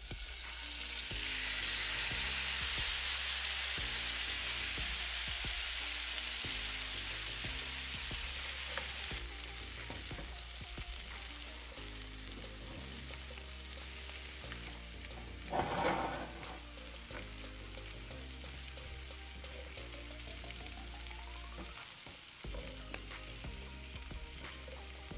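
Cooked chicken pieces tipped back into a hot skillet of diced sweet potatoes and carrots, setting off a loud sizzle that swells about a second in and then eases into steadier frying as a silicone spatula stirs the hash. A brief louder noise comes about sixteen seconds in.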